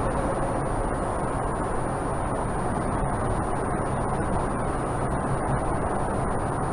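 Steady road and engine noise inside a moving pickup truck's cab, an even rumble with a faint high-pitched whine held throughout.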